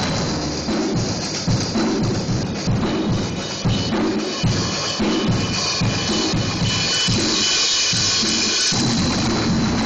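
Two drummers playing drum kits together: a beat of bass drum and drum hits about two to three a second under a hiss of cymbals, blurring into a steady wash near the end.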